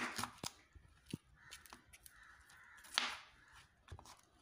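Kitchen knife cutting a green bell pepper on a wooden cutting board: crisp cuts through the pepper and a few scattered knocks of the blade on the board, the loudest about three seconds in.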